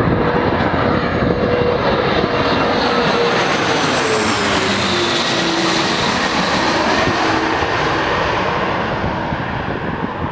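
Airliner's engines passing close by, loud and steady, their tone falling in pitch about halfway through as the aircraft goes past.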